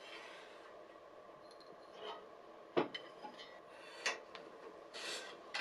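Several small, sharp taps and clicks of a steel ruler and a marker against a stainless steel oven pan while it is measured and marked, with a brief scratch of the marker near the end, over a faint steady hum.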